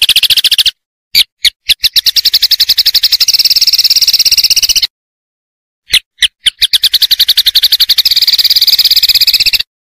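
Masteran song-training recording for white-rumped shamas: a loud, high-pitched pulsed trill. It comes in two phrases, each starting with a few separate pulses that run into a fast, even train of about a dozen pulses a second lasting about three seconds, and each cuts off abruptly into dead silence.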